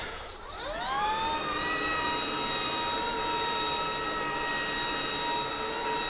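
Shark IonFlex cordless stick vacuum switching on: its motor whine rises over about a second, then settles into a steady high whine as the vacuum runs over carpet.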